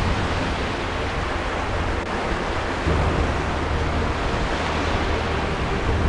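Background music: a dense, hissing wash over low sustained bass notes, which change about three seconds in.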